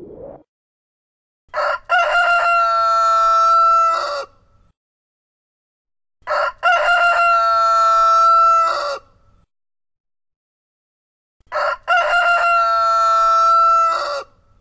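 Rooster crowing three times, about five seconds apart: each crow is a short opening note followed by a long, steady held cock-a-doodle-doo of about two seconds.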